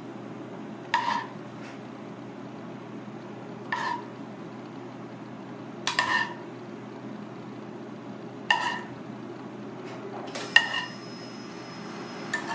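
Metal spoon clinking against a copper saucepan as sauce is spooned out: about six sharp strikes, roughly every two to three seconds, each ringing briefly at the same pitch, over a steady low background hum.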